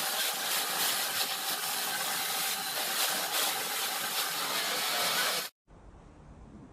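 Large industrial log saw in a sawmill cutting through timber: a steady loud rush of cutting noise with a faint whine. It stops abruptly about five and a half seconds in, leaving only a faint low background.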